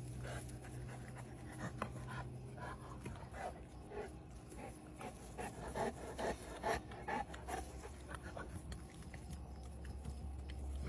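Five-week-old puppies panting, with a run of short, high little calls bunched in the middle.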